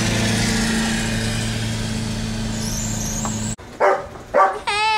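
Car engine humming steadily inside the cabin while driving, cut off abruptly about three and a half seconds in. A few short, high-pitched wavering calls follow.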